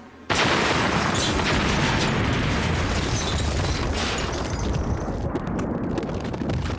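Cartoon explosion sound effect: a sudden loud blast about a third of a second in, followed by a long, heavy rumble that thins out in its upper part after about four seconds.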